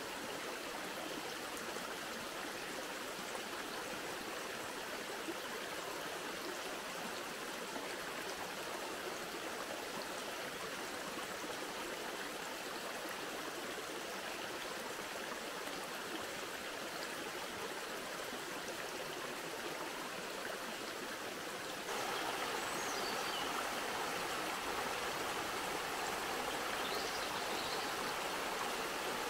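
Shallow forest stream running over rocks, a steady rush of water. A little over two-thirds of the way through it gets louder and brighter, heard close to a small cascade.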